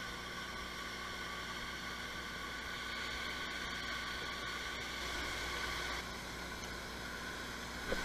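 Waterfall plunging into a pool: a steady rush, with a short knock near the end.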